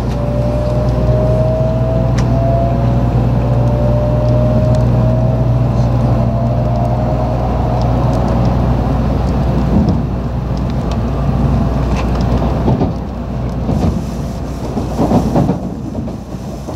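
Tokaido Shinkansen train heard from inside the car as it accelerates away from a station: a motor whine climbs slowly in pitch over a steady low hum and rumble. Past the halfway mark the sound changes, with a louder rushing surge as another train passes close alongside.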